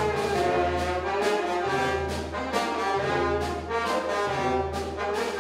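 Brass band playing slow music, with a low bass line under the melody.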